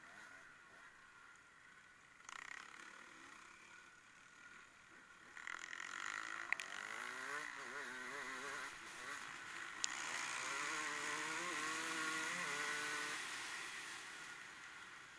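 An engine revving up and down as a vehicle approaches and passes, louder from about five seconds in and fading near the end, with two sharp clicks along the way.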